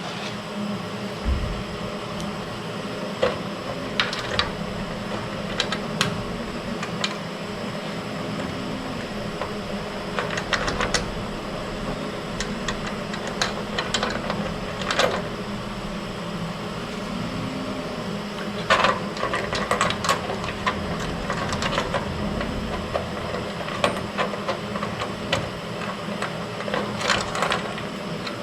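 Irregular light clicks and metallic taps from the small parts of a truck door latch assembly being handled and fitted, over a steady background hum.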